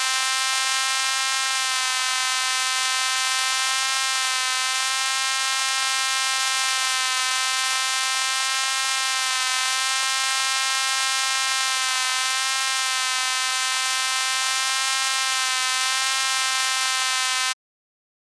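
A fly buzzing close to the ear: a steady, even buzz whose pitch wavers slightly, cutting off abruptly near the end.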